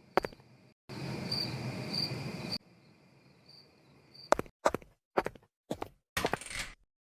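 Cricket chirping sound effect: a high, pulsing chirp over a hiss, heard a few times. It is followed by a run of about six short, sharp thumps in the last few seconds.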